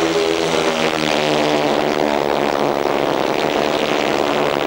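Grasstrack solo racing motorcycles running at speed round the track: a steady engine drone whose pitch wavers slightly as the riders work the throttle.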